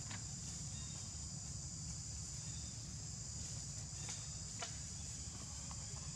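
Steady high-pitched drone of insects in the forest, over a low rumble, with a few faint clicks.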